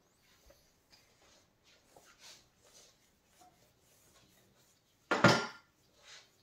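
Soft brush strokes of gold-leaf adhesive on a painted wall, then a single short, loud knock about five seconds in and a fainter one near the end.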